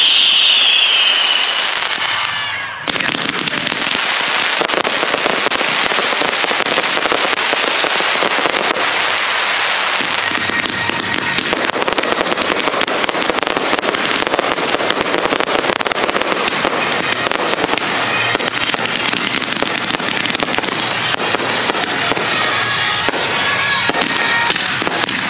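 Fireworks going off: a high whistle falls in pitch and fades about two seconds in, then a dense, continuous crackling of many small bangs.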